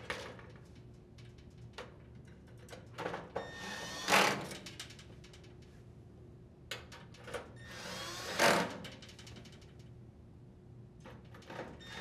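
Cordless drill driver running screws into the dryer's heating element mounting holes: two short runs of the motor, about four and eight and a half seconds in, each getting louder toward its end. Small clicks of handling come between them.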